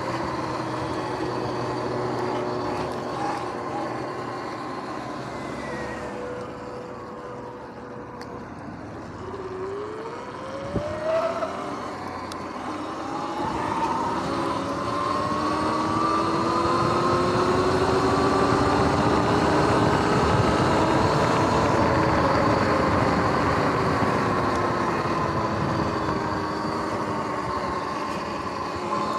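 Sur-Ron X electric dirt bike riding off-road: its motor whine falls as the bike slows, then climbs in pitch as it speeds back up, over steady tyre and wind rush. A brief knock comes a little after the whine starts to climb, and the ride is loudest in the second half.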